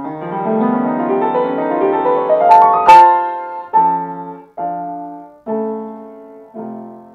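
Upright piano played solo: a quick upward run of notes climbs for about three seconds to a loud, sharp accent, then four separate chords are struck, each left to ring and fade, closing the piece.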